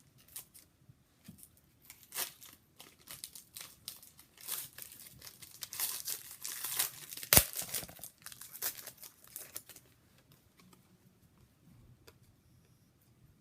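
Trading cards and their packaging being handled: rustling and crinkling, with a sharp click about seven seconds in. It goes quieter for the last few seconds.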